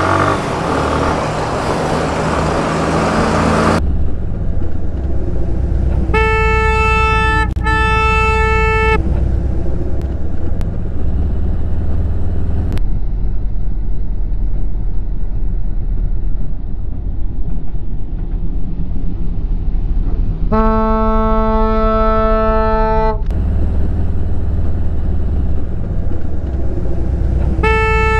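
Motorcycle engine running steadily under riding wind noise, with a vehicle horn honking: two short honks about six seconds in, a longer, lower-pitched honk around twenty seconds in, and another short honk near the end.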